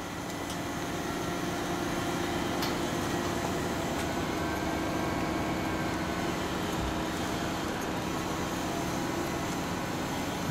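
Steady low hum of heavy machinery, a crane's diesel engine running as it lifts stop-log sections, under a broad haze of outdoor noise. It fades in over the first couple of seconds and then holds level.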